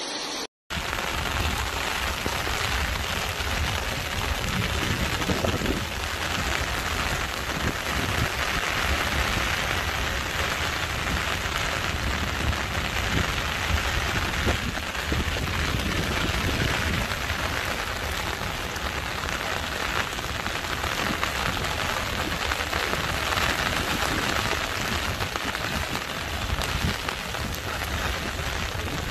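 Heavy cyclone rain pouring steadily onto flooded ground and open water, a dense even hiss with a low rumble underneath. There is a brief break to silence about half a second in.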